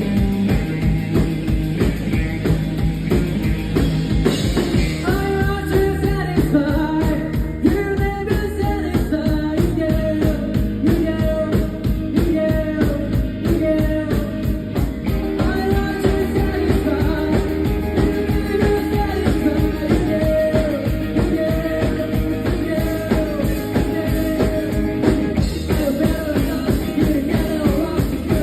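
Live rock band playing, with drum kit keeping a steady beat and a singer's voice coming in about five seconds in.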